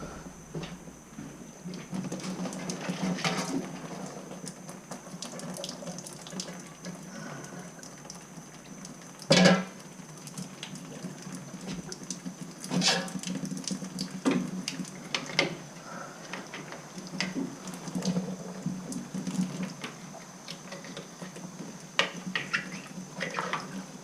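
Water running and trickling into a bucket from the opened filter of a tankless water heater, with scattered knocks and clinks of tools and parts being handled, the loudest a sharp knock about nine seconds in. A steady hum sits underneath.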